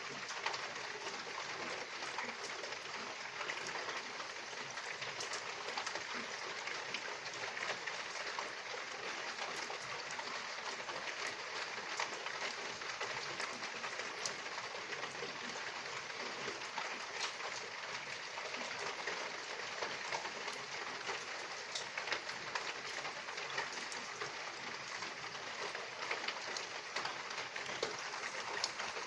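Steady rain falling: an even hiss with many separate drops ticking sharply through it.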